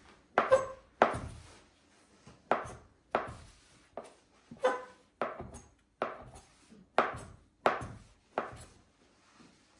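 Kitchen knife chopping through a rolled-up sheet of thin dough and striking the tabletop beneath: about a dozen sharp knocks, roughly one every two-thirds of a second, with a short pause between about one and a half and two and a half seconds in.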